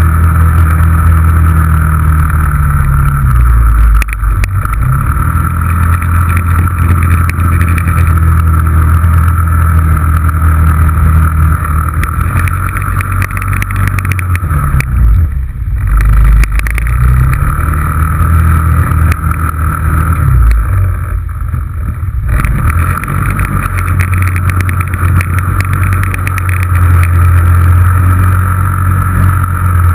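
Yamaha Rhino 660's single-cylinder four-stroke engine running hard as the side-by-side drives on snow. Its speed drops and climbs back about four seconds in, around fifteen seconds, and again around twenty-one seconds.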